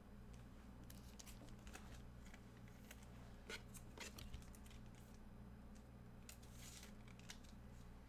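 Near silence over a low steady hum, with faint ticks and a couple of brief soft rustles from trading cards and their packaging being handled.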